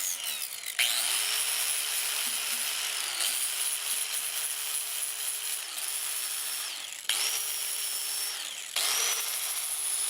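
Angle grinder with a 120-grit flap disc sanding a steel motorcycle frame: a steady high motor whine over a hiss of abrasion. It stops and restarts three times, the whine falling as it spins down and rising as it spins back up, and the pitch sags briefly a couple of times when pressed into the work.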